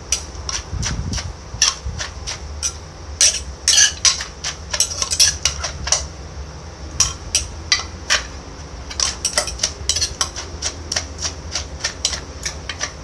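Wooden pestle pounding Thai papaya salad in a clay mortar: a quick run of sharp knocks, about three a second, with a short lull a little after the middle. A spoon works the mix against the mortar between strokes.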